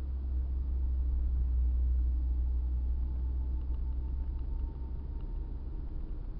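Car driving at town speed, heard from inside the cabin: a steady low rumble of engine and tyre noise that swells slightly in the first couple of seconds and eases off a little after about four and a half seconds.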